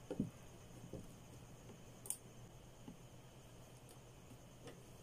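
Faint, scattered small clicks and taps of electrical wires being handled in a plastic junction box, with one sharper click about two seconds in.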